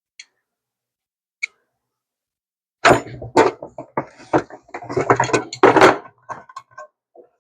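Channel-lock pliers working on a metal paint spray gun: two sharp clicks, then about three seconds of dense metallic clattering and knocking, tapering off into a few light ticks.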